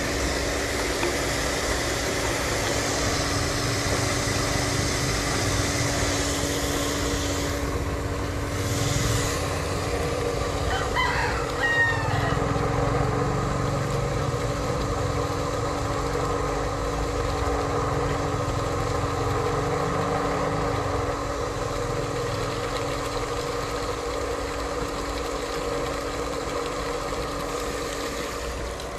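Electric deep-suction well pump running steadily with a motor hum, pumping water to flush soap out of the newly fitted pipe. A rooster crows once about eleven seconds in.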